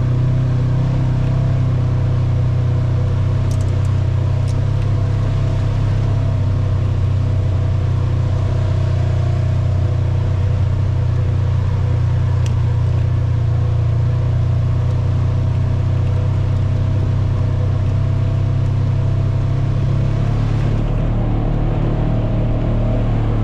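ATV engine running at a steady trail speed: a constant, even drone.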